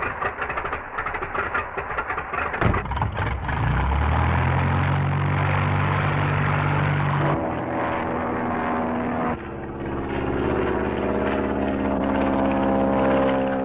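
Single-engine light aircraft's piston engine being started by hand at the propeller: irregular sputtering coughs, then it catches about four seconds in and settles into a steady run. Its note shifts about seven and nine seconds in as the throttle changes for taxiing and takeoff.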